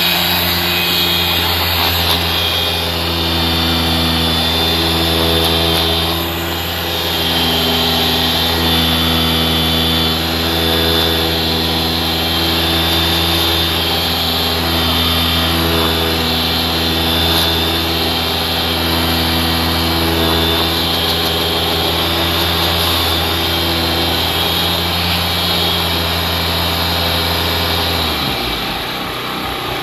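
A motor-driven machine running steadily, its pitch shifting slightly now and then, then cutting off shortly before the end.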